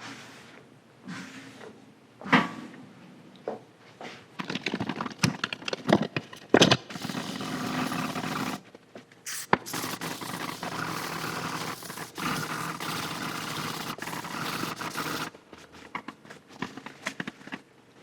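Scotch-Brite pad scrubbing the surface rust off a band saw's cast iron table, wet with WD-40: a steady scraping that runs for several seconds at a time, after some knocks and clatter in the first few seconds.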